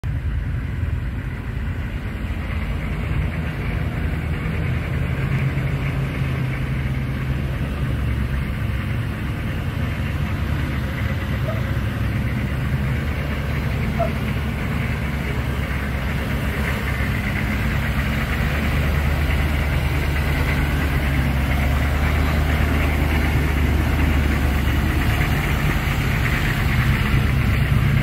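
Humvee's diesel engine running steadily at low revs as the truck crawls over slickrock, getting a little louder about two-thirds of the way through.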